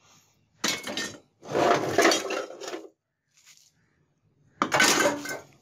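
Rusty scrap metal clattering and scraping as pieces are pulled out of a heap of old cans, rods and tools, in three bursts of clanking with pauses between.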